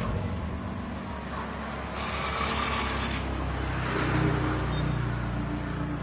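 Isuzu 4BC2 3.3-litre turbocharged four-cylinder diesel engine running steadily.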